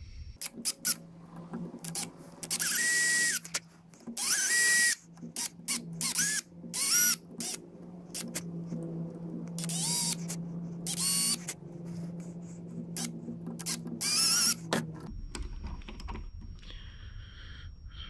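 A small electric drill boring a hole into the broken end of a wooden teapot handle. The hole will take an epoxy pin to rejoin the break. The drill whirs in many short bursts, several of them longer with the motor speeding up and slowing down, and stops about fifteen seconds in.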